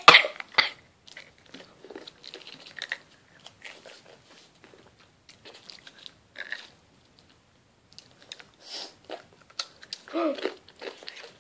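A person chewing and biting on chocolate from an ice cream, with short scattered crunches and crackles.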